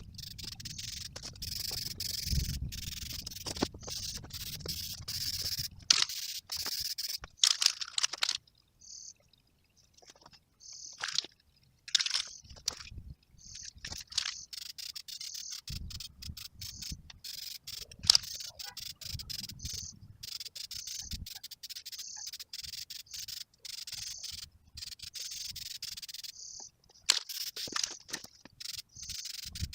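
Steady high-pitched insect chirring, broken off abruptly many times, with low rumbling noise at the start and again about halfway through.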